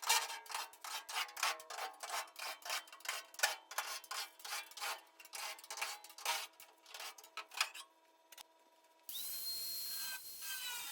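A hand tool rasping back and forth on sheet metal in quick, uneven strokes, as when filing or hand-cutting a steel patch piece. About nine seconds in the strokes stop, and a steady hiss with a high, wavering whine starts suddenly.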